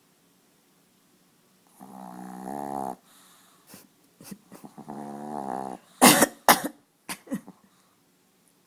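Chihuahua snoring: two drawn-out, pitched snores, then a cluster of short, sharp, noisy bursts, the loudest about six seconds in.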